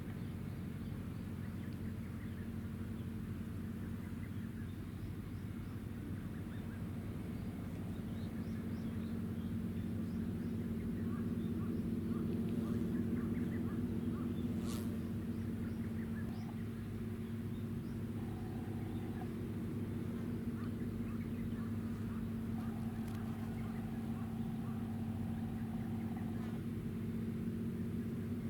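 Warship engines of the helicopter destroyer JS Kaga humming steadily, a low drone with several pitched tones that swells for a few seconds around the middle. Two faint, brief higher tones and a few small chirps sound over it in the second half.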